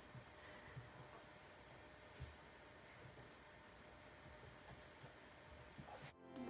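Faint scratching of a Prismacolor coloured pencil shading on paper, with a few soft ticks. Music comes in just before the end.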